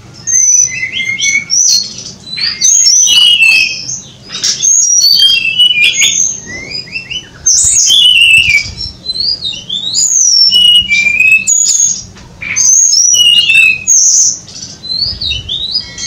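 Magpie-robin (kacer) singing: a loud, varied run of clear whistled phrases, the notes sliding up and down, broken by short pauses.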